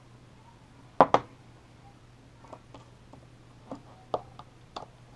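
Small metal clicks and taps of a screwdriver and adapter screws being worked into a lens mount, with a sharp double knock about a second in and lighter scattered clicks after.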